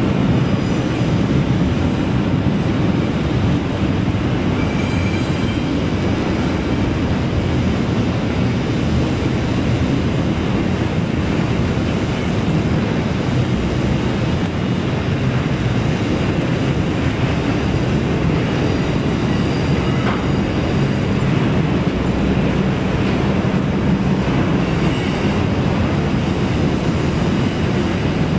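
Double-stack freight train rolling by: a steady rumble of the cars on the rails, with faint wheel squeal now and then.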